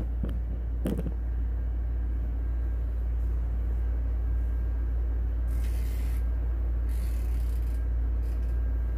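Steady low electrical hum from a plugged-in Kuppet twin-tub portable washing machine before its wash tub starts agitating. A couple of brief hissy scrapes come late on as its control knob is turned.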